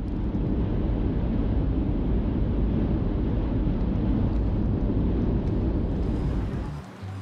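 Steady low rumble of road and wind noise inside a moving car at highway speed, dropping away near the end.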